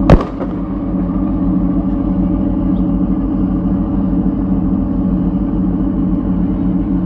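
Boat engines running with a steady low drone. Right at the start a single loud bang rings out and fades within half a second.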